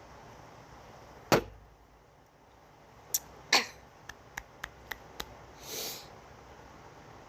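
A person drinking beer: a sharp knock about a second in, then swallowed gulps heard as small clicks about four a second, and a short breathy exhale near the end.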